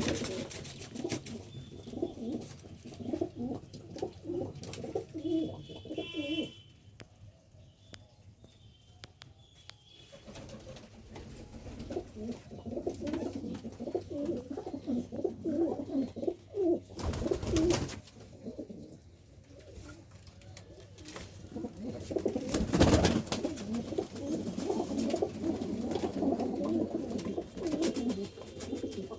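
Domestic pigeons cooing, several at once in overlapping low calls, with a quieter lull partway through. Two louder rushes of noise break in, one lasting about a second some 17 seconds in and a shorter one about 23 seconds in.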